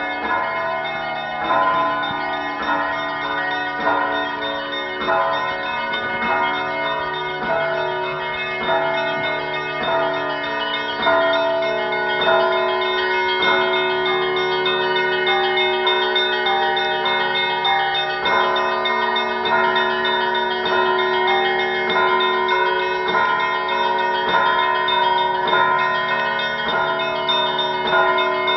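Russian Orthodox church bells ringing together before an evening service: strikes come about once a second over the lasting, overlapping tones of several bells, with a deep steady hum from the largest bell.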